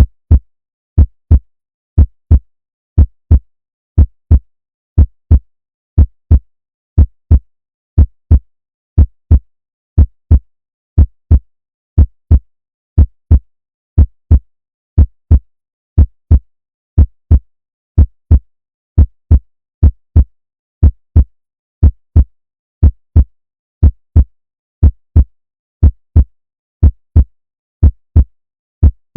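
Healthy human heart beating about once a second. Each beat is a lub-dub pair of heart sounds, the two close together, followed by a longer pause before the next pair.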